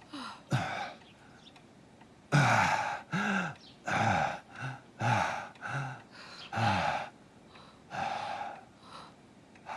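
A man gasping and groaning for breath in a series of short, strained breaths, starting about two seconds in: the labored breathing of someone in the grip of an attack of illness.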